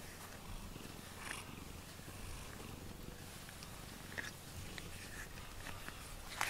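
Domestic cat purring steadily while being brushed with a rubber grooming brush, with a few soft scratchy brush strokes through the fur.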